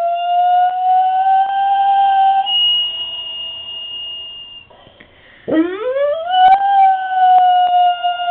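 Dog howling along to church bells that cannot be heard themselves: one long, held howl that fades out about halfway through, then after a short pause a second howl that rises steeply in pitch and is held to the end.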